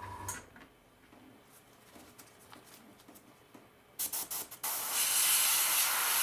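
Paint spraying an undercoat onto a plastic scale model: after a few quiet seconds, several short spurts of hiss about four seconds in, then a steady, loud hiss of spray.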